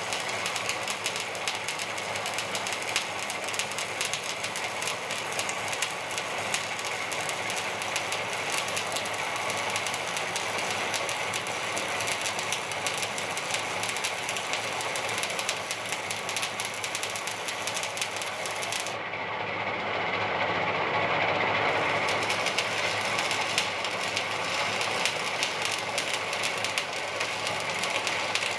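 Electric arc welding on steel plate: a steady, dense crackle of the arc as a bead is laid. For a few seconds past the middle it turns duller and a little louder.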